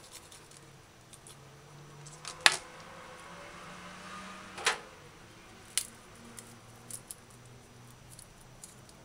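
A metal hand grater is handled and set down on a plastic cutting board: three sharp clacks, the loudest about two and a half seconds in, then a few lighter ticks.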